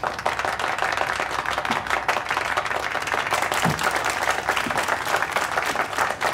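Applause from a room full of people, breaking out suddenly and keeping up at an even level.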